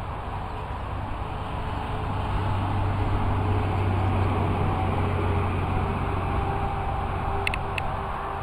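Low rumble of a passing road vehicle, swelling over the first few seconds and easing off again, with two short high chirps near the end.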